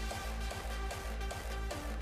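Background electronic dance music with a steady bass beat and held synth tones.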